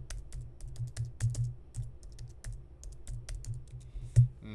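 Typing on a computer keyboard: a quick, irregular run of key clicks, with one louder key strike near the end.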